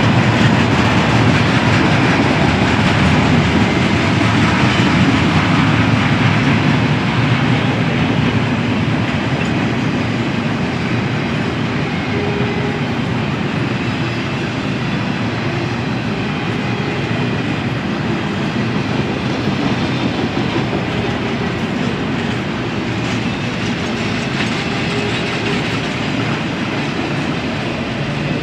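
Norfolk Southern double-stack intermodal train's well cars rolling past, a steady noise of steel wheels on rail that grows gradually quieter.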